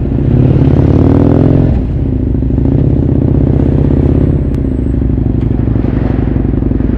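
Motorcycle engine under way, heard from on the bike: it rises in pitch for the first second or two, eases off, then runs steadily at low speed.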